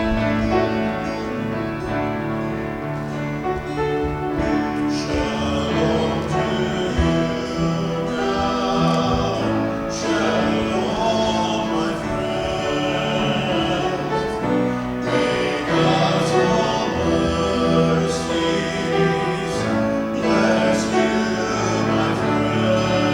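Worship music: piano playing, with voices singing coming in about five seconds in.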